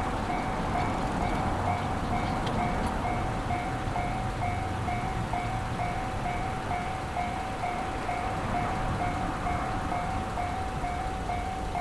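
Japanese railway level crossing warning bell ringing steadily, one repeating tone about twice a second, over a low rumble.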